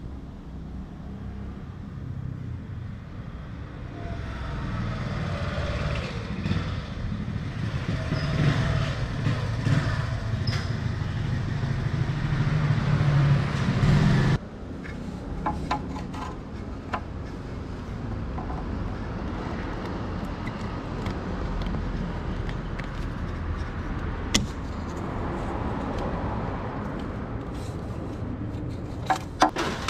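A vehicle engine running, a steady low rumble that grows louder over about fourteen seconds and then drops abruptly, continuing quieter with scattered clicks and a few sharper knocks near the end.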